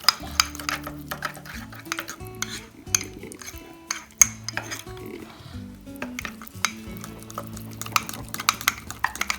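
A fork stirring cake batter in a mug, clinking and scraping against the sides in quick, irregular taps.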